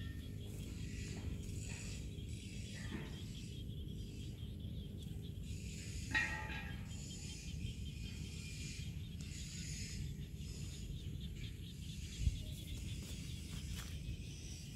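Steady low outdoor rumble, with one short high squeak from a baby macaque about six seconds in and a single low thump about twelve seconds in.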